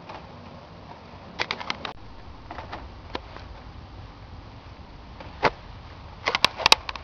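Sharp clicks and knocks in short clusters: a quick run of four or five about a second and a half in, a few more soon after, a single louder one about five and a half seconds in, and a dense, loudest burst near the end.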